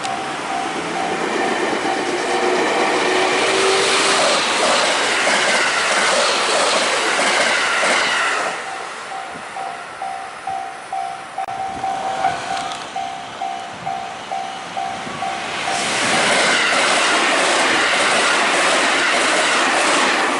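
Electric trains passing close by. The first pass is loud, with falling whines from the motors and wheels. The wheels then clickety-clack in a steady rhythm over the rail joints, and another loud pass comes near the end.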